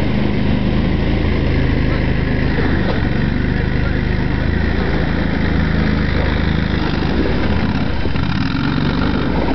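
ARGO Avenger 8x8 amphibious ATV engine running steadily as it works through swamp water, its pitch shifting slightly about halfway through and again near the end.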